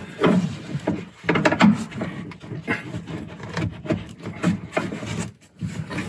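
Seat belt webbing and its metal hardware being worked through a plastic interior trim panel by hand: irregular rubbing and scraping with light knocks.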